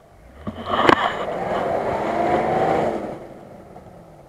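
Off-road 4x4 SUV engine revving hard as the vehicle climbs a muddy rutted slope, with a sharp knock about a second in. The revs hold high for about two seconds, then fall away near the three-second mark.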